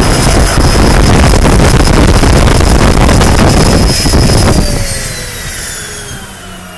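Cessna Grand Caravan's Pratt & Whitney PT6A turboprop running loud with a high steady whine, heard from inside the cockpit. About four and a half seconds in the engine is shut down: the roar drops away and the whine slides steadily down in pitch as the turbine and propeller wind down.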